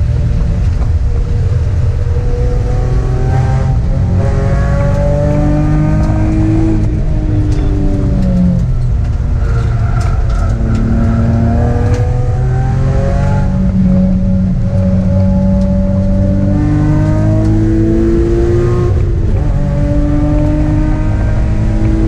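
Sports car's engine heard from inside the cabin while lapping a racetrack, climbing in pitch under hard acceleration and dropping back at gear changes or under braking several times, over a steady low road and tyre rumble.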